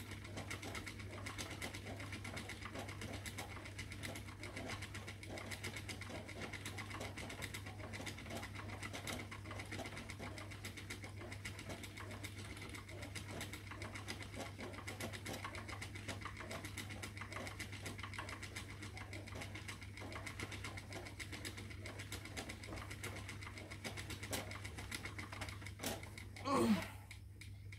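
Spinning wheel running steadily while plying yarn: a continuous whirring hum with fine rapid ticking. Near the end comes a short, loud squeal, and then the whirring stops.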